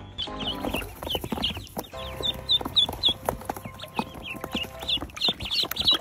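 Many ducklings peeping together, starting about half a second in: rapid short high calls, each falling in pitch, overlapping, with scattered clicks and knocks.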